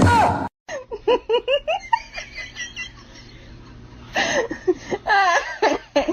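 Laughter in quick, repeated short bursts, after a brief loud cry right at the start that is cut off.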